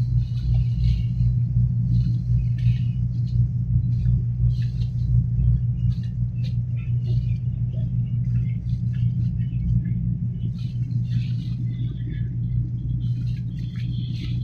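A boat's engine runs steadily as a deep, pulsing hum, with water splashing irregularly against the hull.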